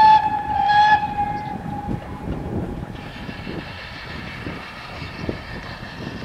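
Steam locomotive whistle: a long blast ending just after the start, then a second short blast about a second in. After it, the train is heard running across the viaduct in the distance.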